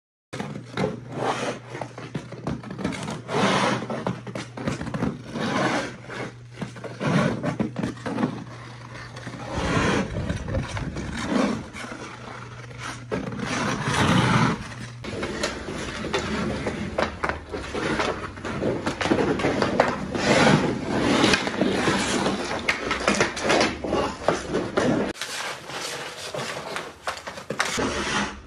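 Ice skate blades scraping and cutting across a backyard rink's ice, stroke after stroke.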